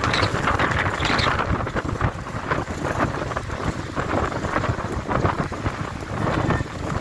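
Storm wind gusting hard against the microphone, rumbling and buffeting, with rain coming down.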